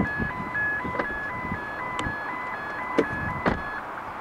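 Electronic two-tone warning alarm alternating between two high pitches about twice a second and stopping near the end, over the rumble of slow-moving freight wagons with sharp clanks about once a second.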